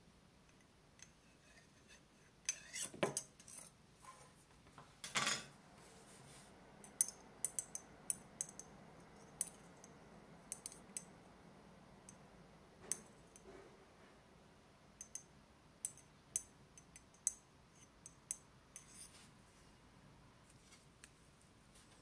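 Metal tweezers ticking and tapping against a small glass bottle and scraping in soil while moss is planted through its narrow opening. There are many light scattered clicks, with two longer scrapes a few seconds in.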